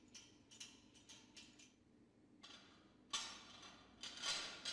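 Faint metal clicks as threaded steel support bolts are turned by hand into a cargo pump's cover. Near the end come two short scraping rattles as a steel plate is slid down over the bolts.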